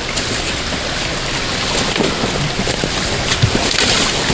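Steady rush of water with scattered small splashes and clicks.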